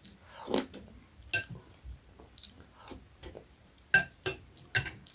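A metal spoon clinking against a bowl several times while eating, each clink ringing briefly, the loudest ones bunched about four seconds in, with faint chewing between.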